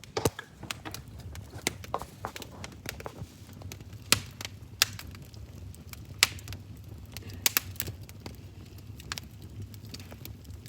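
Fire crackling: irregular sharp pops and snaps, a few of them much louder, over a low steady rumble.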